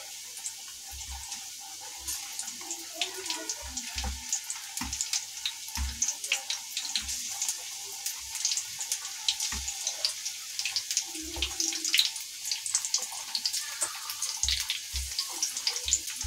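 Breadcrumb-coated arbi (taro) rolls deep-frying in a kadhai of oil on a low flame: a steady sizzle with fine crackling, broken by occasional short low thumps.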